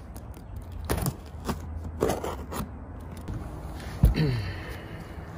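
Utility knife scraping and cutting through old lap sealant and rubber roofing around an RV roof antenna base, in a few short strokes. About four seconds in comes a sharp knock, followed by a short falling creak as the material is pulled up.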